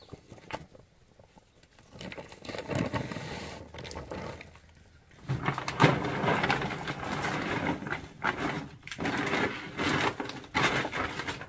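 A woven plastic sack rustling as its contents are shaken out into a large cooking pot. It is quiet at first, then goes in bouts from about two seconds in, louder and denser from about five seconds in with a couple of short pauses.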